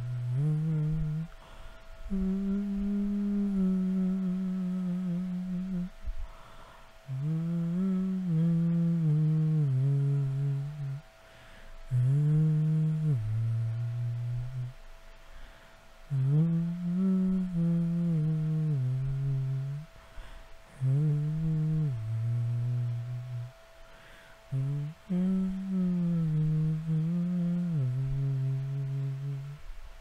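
A man humming a wordless melody in a low voice, in held notes that step up and down, in phrases of a few seconds with short breaths between, over a faint steady tone.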